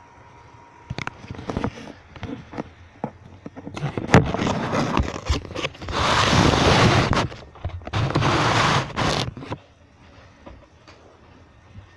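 Handling noise on the recording device's microphone: scattered clicks and knocks, then loud rubbing and scraping in two long stretches, the strongest about six and eight seconds in, ending about two seconds before the end.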